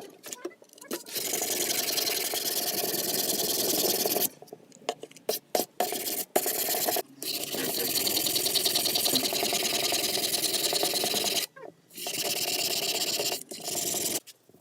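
Steady, fast rasping of an abrasive tool working a surface. It comes in three stretches of a few seconds each that cut off abruptly, with short gaps and a few clicks between.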